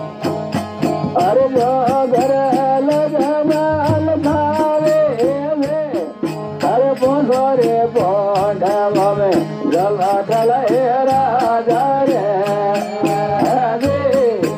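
Rajasthani folk music: a melody that bends up and down in pitch over a steady low drone and an even percussion beat. The melody breaks off briefly about six seconds in.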